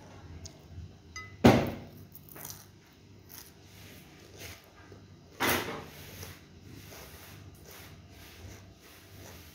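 Close-up eating sounds of raw shredded cabbage and carrot salad: soft chewing and small clicks, with two loud, sudden crunches, one about a second and a half in and another around five and a half seconds.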